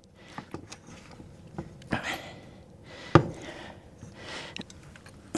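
Tools being handled in a car's engine bay: scattered light clicks and knocks with some rustling, and one sharper knock about three seconds in.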